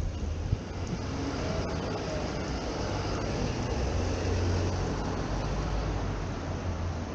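City road traffic: a passing vehicle's noise swells about halfway through and eases off again, over a steady low hum.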